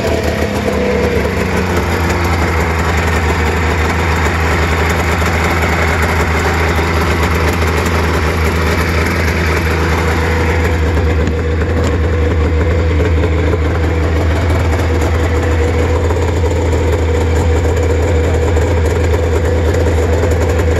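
1999 Arctic Cat Thundercat 1000 snowmobile's three-cylinder two-stroke engine idling steadily on its stock exhaust, freshly started and warming up.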